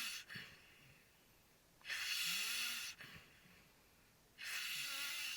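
A sleeper snoring: slow, hissing breaths come about every two and a half seconds, each about a second long, with faint whistling tones riding on the breathing.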